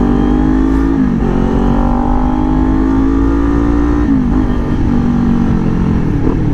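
Motorcycle engine accelerating through the gears, its pitch climbing slowly and dropping sharply at upshifts about a second in and again about four seconds in, with wind rumbling on the microphone.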